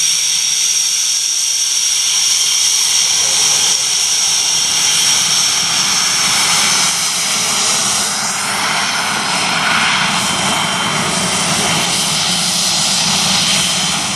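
Panavia Tornado's twin RB199 turbofans running at taxi power: a steady high whine over a rushing roar. From about eight seconds in, the roar grows fuller as the jet turns its exhausts toward the listener.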